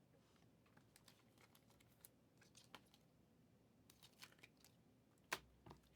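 Faint, scattered clicks and ticks of trading cards being handled and flipped through, with one sharper click about five seconds in.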